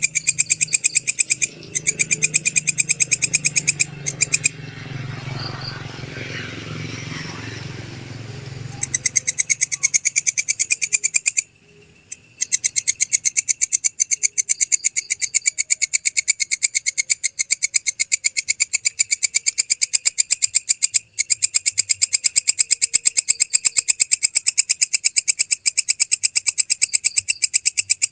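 Walang kecek katydid calling: a long, loud train of rapid, sharp ticking chirps, breaking off a few times, once for about four seconds while a lower, rougher noise fills the gap.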